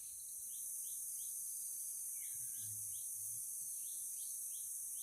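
Steady high-pitched insect drone of crickets or similar insects, with a string of short rising chirps scattered through it.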